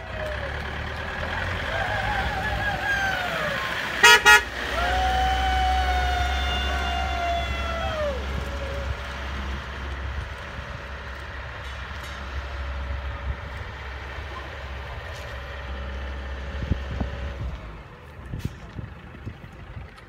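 Road train's horn giving a quick pulsing burst of toots about four seconds in, then its engine running low and steady as it pulls away, fading out near the end. Long whooping calls that slide down in pitch sound over the first half.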